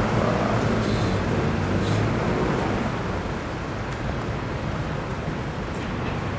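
Street traffic noise: a motor vehicle's engine hum, louder over the first two to three seconds, then settling to a steady background rumble.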